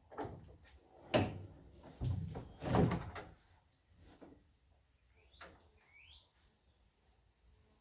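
A door being opened and shut: a run of knocks and thumps over the first three seconds, then fainter handling knocks and a couple of short rising squeaks.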